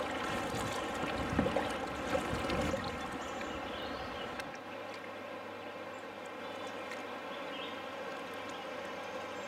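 Double-bladed kayak paddle strokes in calm river water: the blades dipping and splashing, with water dripping and trickling off them. It is livelier in the first three seconds and then settles to a quieter steady wash of water.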